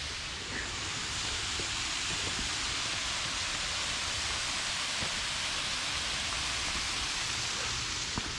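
Steady rushing of a waterfall pouring into a sinkhole: an even, unbroken hiss.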